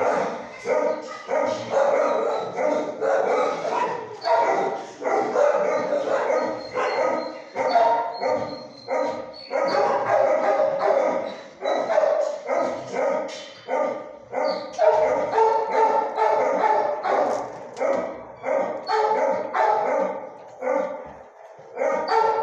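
Dogs in a shelter kennel block barking without pause, about two or three barks a second, overlapping.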